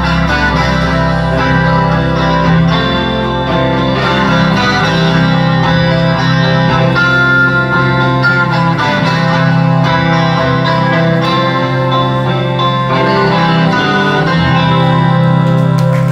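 Live rock band playing an instrumental passage led by electric guitars, steady and loud, with no singing.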